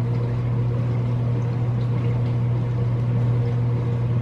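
Steady low electrical hum with fainter higher overtones, from a running appliance or its fan, under faint room noise with a few light ticks.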